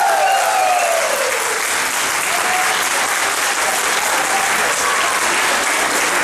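Audience applauding steadily, a hall full of people clapping after the dance. A falling tone fades out over the first second or so.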